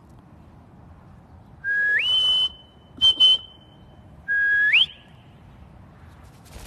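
Two whistles, each starting on a lower note and sliding up to a higher one; the first holds its high note for over a second, and a few sharp clicks come between them.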